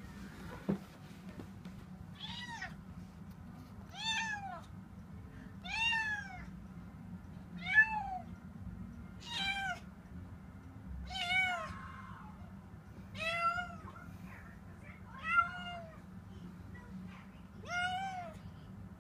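Domestic cat meowing over and over: nine long, drawn-out meows about every two seconds, each rising and then falling in pitch. The owner takes this as the cat panicking at the house heater being switched on for the first time in the season.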